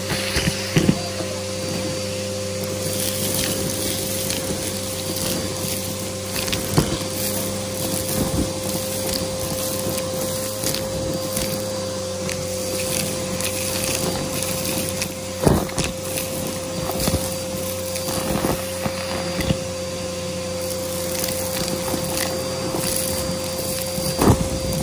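Aeroswift vacuum cleaner running steadily while it sucks up crunchy dry debris, its even motor hum broken by constant crackling and ticking of bits being pulled in, with several louder sharp pops.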